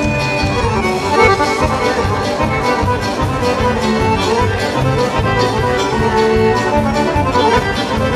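Lively Balkan kolo folk music led by accordion, with a steady quick beat for the circle dance.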